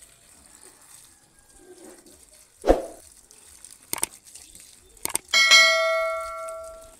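Subscribe-button sound effect: two sharp clicks, then a bell ding that rings out and fades over about a second and a half. A short dull thump comes a little earlier.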